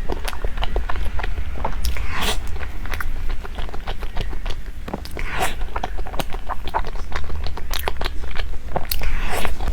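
Someone biting and chewing food, with many short, irregular crunchy clicks over a steady low hum.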